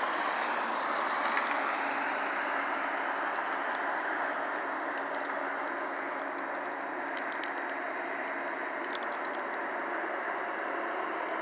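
Steady vehicle noise: an even, unbroken rumble-hiss with a faint hum and a few light ticks.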